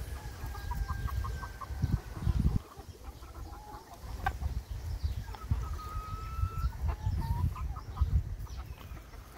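Backyard hens clucking, with runs of short clucks and two long drawn-out calls, one at the start and one about six seconds in. Low rumbling comes and goes underneath.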